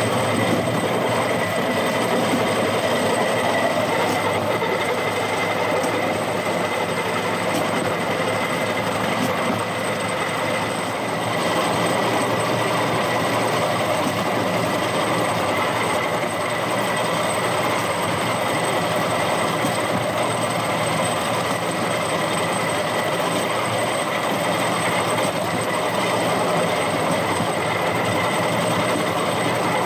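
Rail-mounted golf cart running along an old railway track: the steady rumble and rattle of its wheels on the rails, with a thin steady high whine over it.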